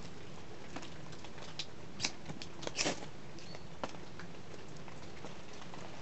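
Steady patter of rain, with a few sharp clicks about two, three and four seconds in as a small twig fire in a wire brazier is being lit.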